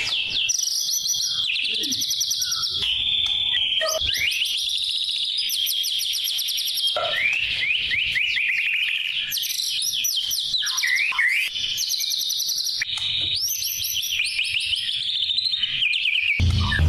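Songbird singing loud, shrill bursts of very fast repeated high notes and quick trills, the rapid-fire 'tembakan' phrases bird keepers prize, one burst after another with only short breaks.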